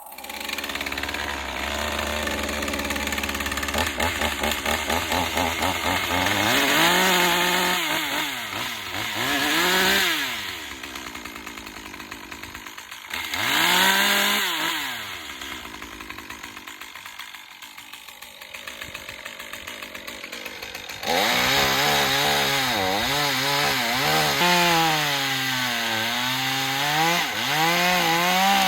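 Stihl pole saw running and cutting branches: the motor pitch repeatedly drops and climbs back as the chain bites into the wood, with louder surges twice early on and a long wavering cut from about two-thirds of the way through.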